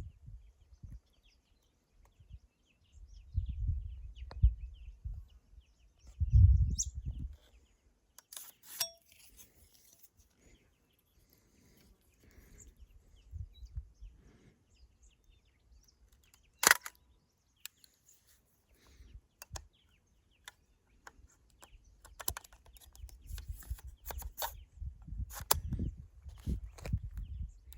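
Outdoor ambience of small birds chirping faintly, broken by low rumbles on the microphone and scattered sharp clicks, with one loud click about two-thirds of the way in and a flurry of clicks near the end.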